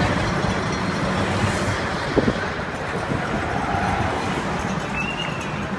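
Steady street noise of motor vehicles, with one short knock about two seconds in and a brief high squeak near the end.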